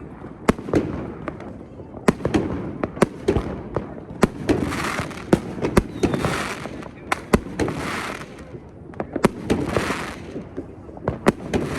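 Fireworks going off repeatedly: many sharp bangs at irregular intervals, with hissing, crackling bursts every second or two.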